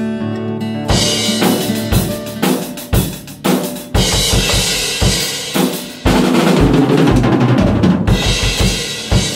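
Pearl drum kit played hard: bass drum and snare hits with cymbal crashes, then a stretch of steady quick bass-drum beats under ringing cymbals. The drumming cuts in about a second in, over acoustic guitar music, and cuts off just before the end.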